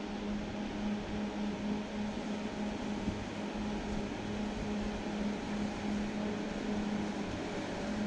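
Wheel loader's diesel engine running at a constant pitch, a steady hum with one held tone, as the machine pushes snow with a V-plow.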